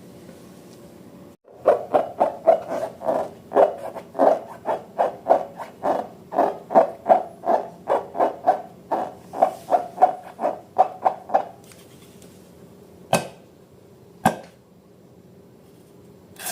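Slime being mixed, squelching in a quick, even rhythm of about three strokes a second for about ten seconds, then two sharp clicks.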